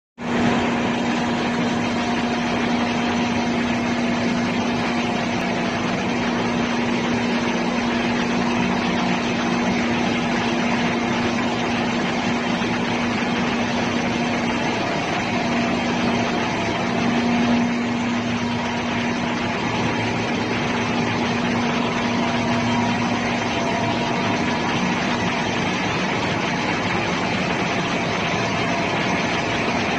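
Steady machinery noise of a ship's engine room with its plant running: an even, unbroken wash of noise with a steady low hum.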